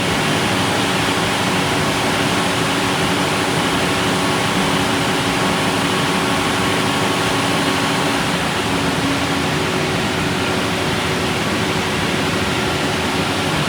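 Standby generator set's engine running steadily on a test run, a loud, even mechanical noise with a faint steady hum, after its battery cables have been replaced.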